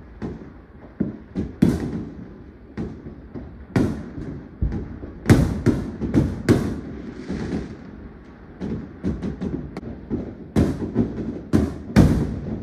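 Fireworks going off: many irregular bangs and pops of shells bursting in the air, coming thick and fast about five seconds in and again near the end, with a short hiss midway.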